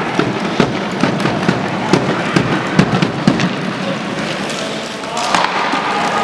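Sledge hockey on ice: rapid, irregular clacks and knocks of sticks and their spiked picks striking the ice and the puck as players push their sledges along.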